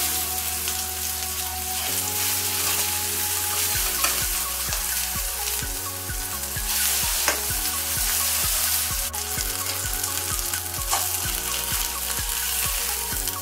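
Chicken patties sizzling in hot oil in a frying pan, a steady hiss, with a few sharp clicks as a spatula scrapes under and turns them.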